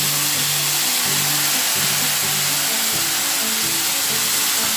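Onion-and-spice masala sizzling and bubbling in a frying pan with hot water freshly poured in. Background music with held notes plays under it.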